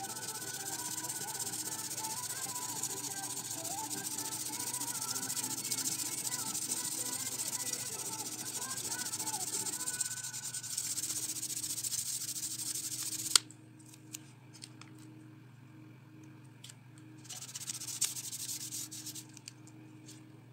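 Tissue and fingertips rubbed back and forth over a coloured-pencil drawing on paper, blending the shading: a steady dry hissing rub. It stops with a click about 13 seconds in, and a short burst of rubbing follows near the end.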